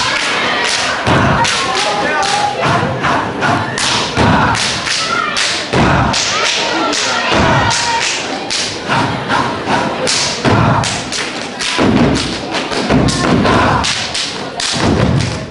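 Step team stepping in unison: rapid rhythmic stomps and hand slaps on a stage floor, with voices shouting between the beats.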